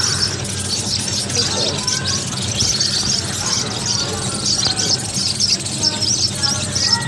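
Many small caged birds such as budgies and finches chirping at once, a fast, continuous chatter of high overlapping chirps, over a steady low hum.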